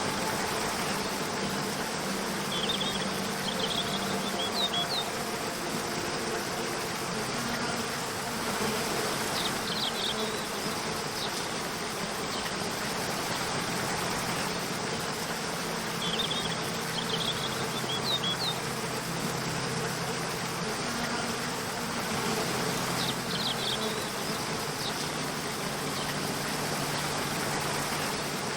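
A waterfall rushing steadily under soft, sustained low background music, with short clusters of high bird chirps recurring about every six or seven seconds.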